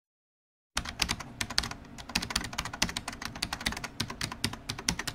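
Rapid typing on a keyboard, a quick irregular run of key clicks starting under a second in after silence.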